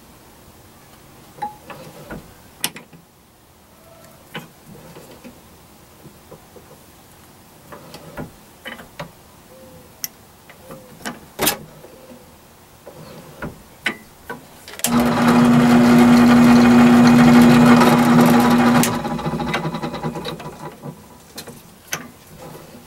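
Light metal clicks and taps as the workpiece is lined up under the drill, then about fifteen seconds in a benchtop drill press motor switches on and runs with a steady hum for about four seconds while drilling a hole, then is switched off and spins down over a couple of seconds.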